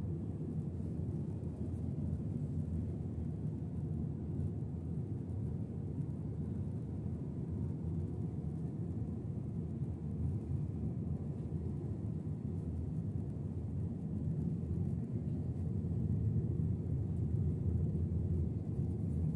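Steady low rumble of an Airbus A320 cruising, heard inside the passenger cabin: engine and airflow noise with no changes.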